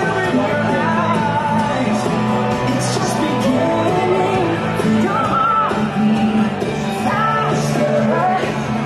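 Music with a singing voice over a steady bass line.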